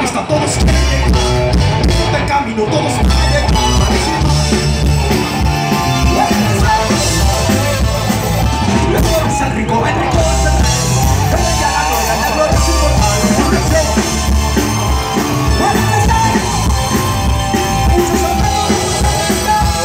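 Live rock band playing through a large outdoor PA system: electric guitars, drum kit and keyboard with a singer's voice, loud and continuous with heavy bass.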